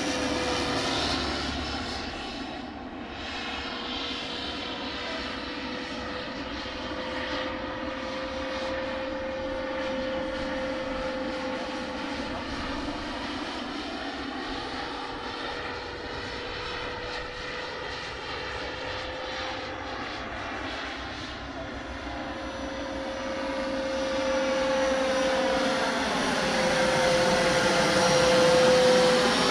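Radio-controlled scale helicopter in flight: a steady motor whine and rotor hum that wavers a little in pitch and grows louder over the last few seconds as the helicopter comes closer.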